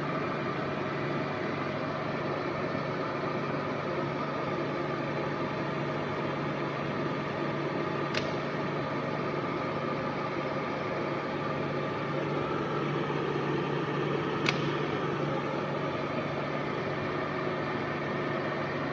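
Pacific FTV-2 milling machine running, a steady mechanical hum with a constant low tone. Two sharp clicks are heard, about eight seconds in and again about six seconds later.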